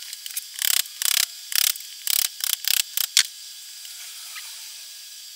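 Hand tool gripping and breaking away at the casing of an ultrasonic fogger in a vise: a quick run of about a dozen short, sharp scraping and cracking strokes over roughly two and a half seconds. After them there is only a faint hiss.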